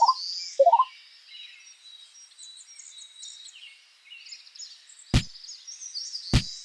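Birds chirping and twittering in a steady background, with two short rising calls near the start. Two sharp knocks come about five and six and a half seconds in.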